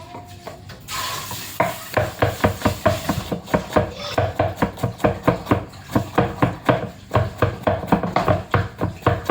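Background music with a quick, even beat that comes in about a second and a half in.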